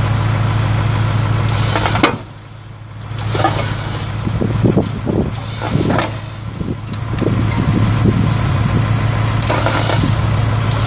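International D190 eight-cylinder diesel engine of a 1987 International S1700 truck idling steadily. A sharp knock comes about two seconds in, the engine sound drops for a second or so, and a few knocks and clatter follow in the middle.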